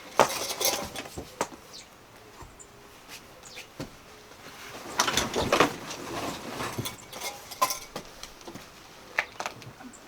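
Firewood burning in a campfire, crackling with irregular sharp pops and a denser flurry of crackles about five seconds in.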